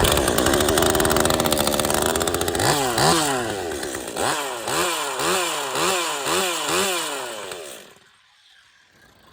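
Unported Stihl MS 201 TC top-handle two-stroke chainsaw held at high revs for a couple of seconds, then blipped up and down about twice a second, then cut off near the end.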